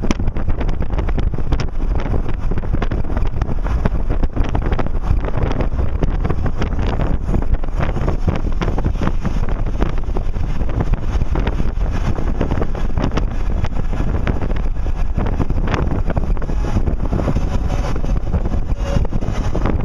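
Steady wind buffeting the microphone of a camera riding on a moving car, over the car's engine and tyre noise at cruising speed.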